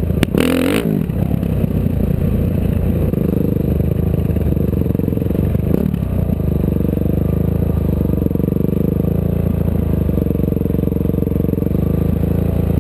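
Vehicle engine running steadily with a low drone, heard while riding in an off-road vehicle, with some rattling. Near the start, and again faintly around six seconds in, a brief rising-and-falling engine sound sweeps past.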